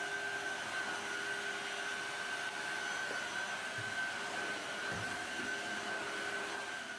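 Cordless two-in-one wet-and-dry vacuum (vacuum and floor washer) running steadily, a high whine over a rush of air, as it is pushed over the floor.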